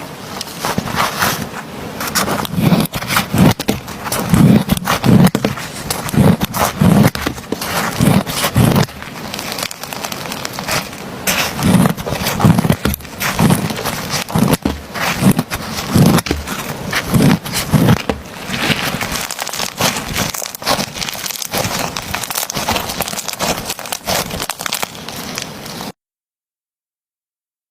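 Slime being pressed and worked by hand, giving dense crackling and popping clicks with soft low presses about once a second. The sound cuts off suddenly near the end.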